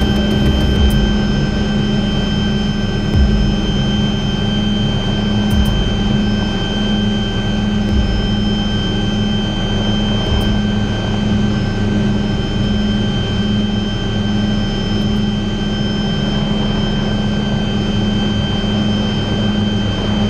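MD 500C helicopter running, heard from inside the cockpit: the Allison 250 turboshaft's steady high whine over the pulsing low drone of the rotor and drivetrain.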